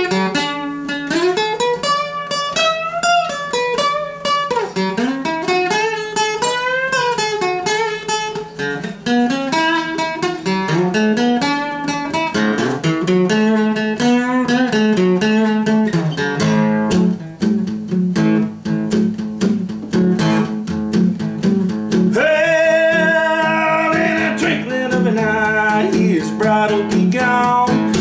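Steel-string acoustic guitar fingerpicked, playing a country gospel melody over a steady alternating bass. Near the end a man's voice joins in singing.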